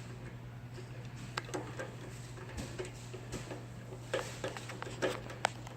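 Irregular small clicks and taps of a Phillips screwdriver and screws being handled and driven into a scale's junction box cover, a few sharper ones near the end, over a steady low hum.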